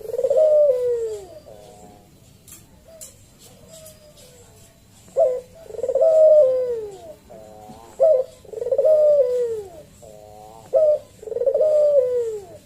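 Barbary dove (puter) cooing its deep 'kuwok' call: four phrases, each a short note followed by a long falling coo, with a quieter stretch of a few seconds after the first phrase.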